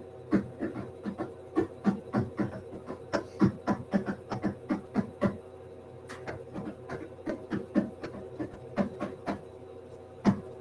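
Typing on a computer keyboard: an irregular run of key clicks, several a second, that slackens a little past halfway, over a steady low hum.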